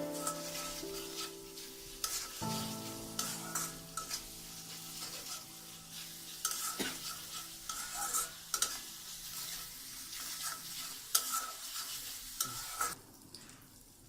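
Onion and spice curry paste sizzling in oil in a pan while being stirred, with repeated scrapes of the stirring utensil against the pan; it drops away near the end.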